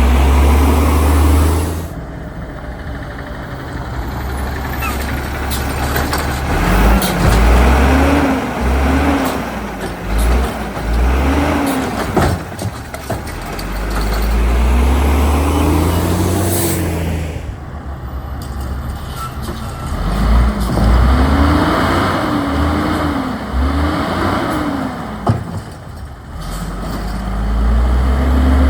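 Autocar WX refuse truck's engine accelerating hard and shifting, its pitch climbing and dropping again and again as it surges between stops, with a couple of sharp clacks near the middle and near the end.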